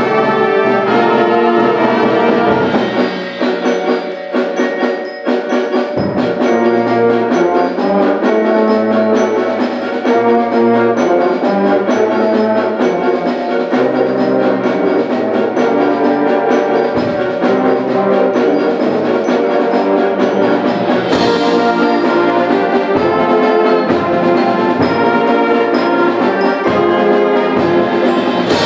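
High school symphonic band playing a concert piece: brass and percussion together, with a loud percussion hit about two-thirds of the way through.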